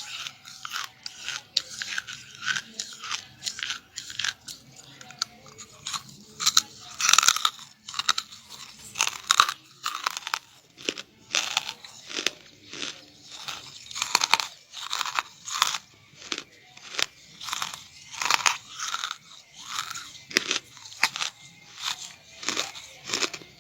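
Charcoal being bitten and chewed, with repeated crisp crunches about once a second.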